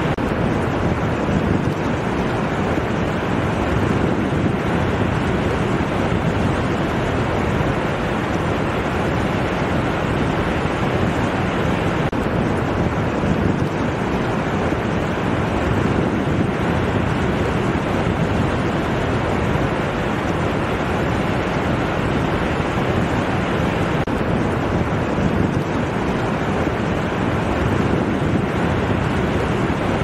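Ocean surf washing in over a flat sandy beach: a steady, even rush of waves with no separate crashes standing out.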